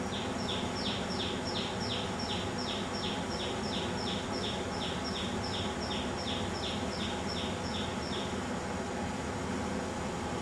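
Common tailorbird singing: a rapid run of about two dozen identical notes, nearly three a second, each sliding down in pitch, ending about eight seconds in. A steady background hum runs underneath.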